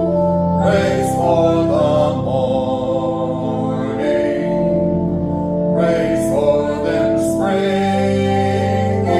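Hymn music: singing over sustained instrumental chords, the notes held and changing every second or so.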